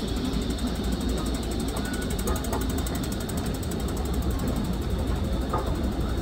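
Steady low rumble of a metro station concourse, with a fast, even mechanical ticking over it.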